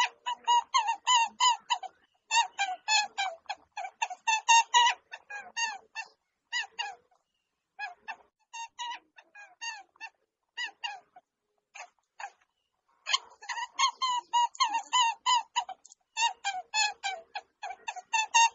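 Rapid series of short, high-pitched animal calls, several a second, in dense runs with a sparser, patchier stretch in the middle.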